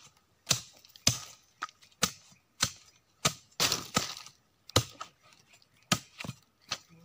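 Machete chopping into a rotten, fibrous tree stump: about a dozen sharp hacks, roughly two a second, with a longer crunching tear of the soft wood a little past the middle.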